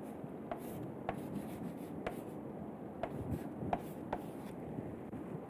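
Chalk writing on a chalkboard: faint scraping strokes with a series of sharp taps as the chalk strikes the board.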